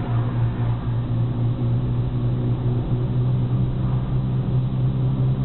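A car's engine and road noise heard from inside the cabin while driving at a steady speed: a steady low drone.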